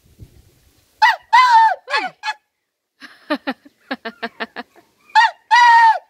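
A man imitating the call of the grey junglefowl with his voice. It has a loud drawn note about a second in, then a run of short clipped notes, then a long, loud held note near the end.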